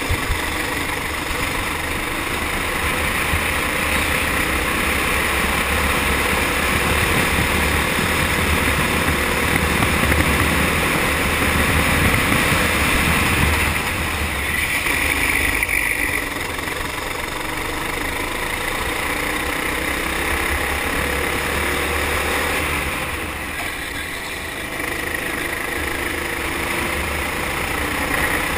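Four-stroke kart engine running at speed, heard from onboard with wind rush over the microphone. The sound drops briefly twice, about halfway through and again later on.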